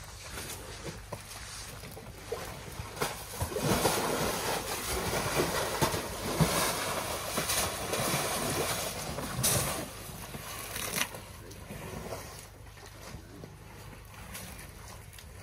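African elephants wallowing in a wet mud pool: mud sloshing and splashing, louder for several seconds in the middle with a few sharp slaps, over wind on the microphone.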